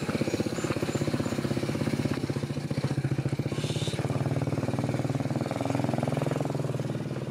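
Small motorcycle engine running steadily while riding with three people aboard, its note rising and falling slightly in the second half.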